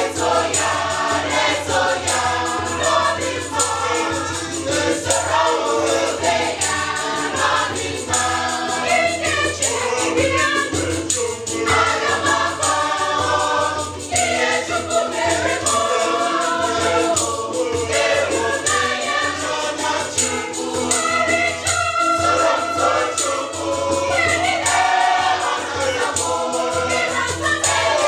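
Mixed choir of men and women singing an Igbo gospel praise song with electronic keyboard accompaniment.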